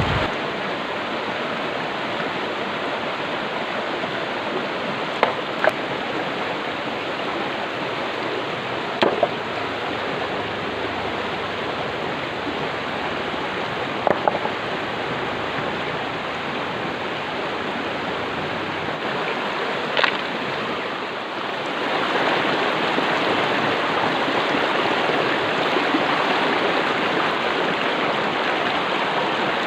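Stream water rushing steadily, with a few short knocks scattered through it; the water grows louder about two-thirds of the way through.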